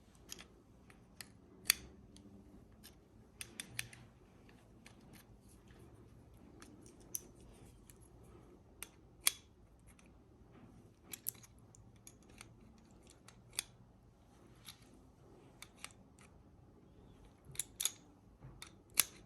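Irregular sharp metallic clicks and taps of a wrench working the hydraulic brake hose fitting as it is tightened by hand, with small clusters of clicks near 4, 11 and 18 seconds.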